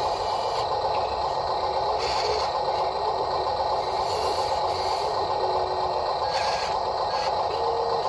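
Small electric gear motors of radio-controlled toy construction machines whining steadily, with short scrapes and rattles of soil about two, four and six and a half seconds in.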